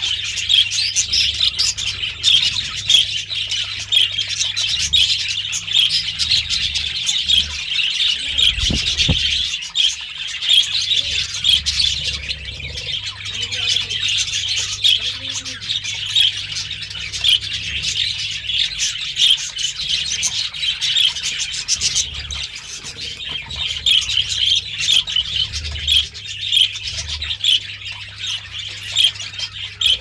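Budgerigars chirping and chattering continuously in dense, rapid, overlapping warbles, over a steady low hum, with a single low thump about nine seconds in.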